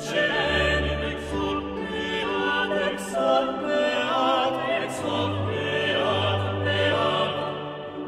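Classical music: an operatic voice singing with vibrato over orchestral accompaniment.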